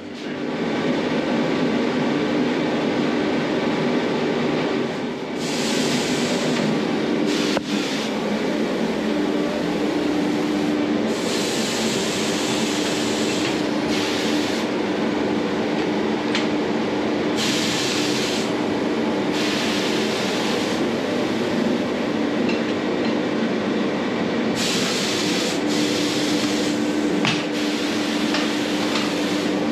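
Steady machine drone with a hum, and bursts of compressed-air hiss from a tyre changer's pneumatic bead breaker working on a motorcycle tyre, about five times, each lasting one to three seconds.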